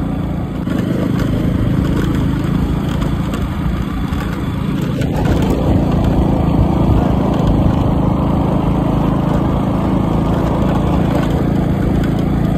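Small motorcycle engine running while being ridden. About five seconds in it revs up and gets louder as the bike speeds up.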